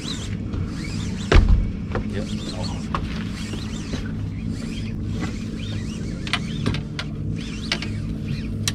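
150-horsepower outboard motor running steadily at low speed, a continuous low hum. A thump about a second and a half in and a few sharp clicks in the second half.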